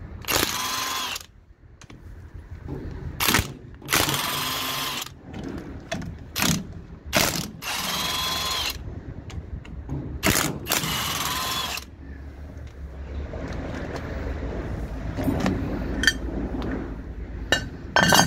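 Parkside PASSP 20 Li A1 cordless brushless impact wrench hammering in four bursts of about a second each, with short blips between, as it undoes rusty bolts on an engine bracket. Near the end come a few light metal clinks as the loosened bracket is handled.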